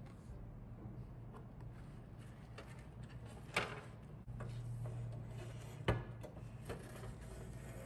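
Handling sounds as a portable stove in a non-woven fabric dust bag is lifted out of its plastic carrying case: soft rustling of the bag, with two sharp plastic knocks, one about three and a half seconds in and one about two seconds later.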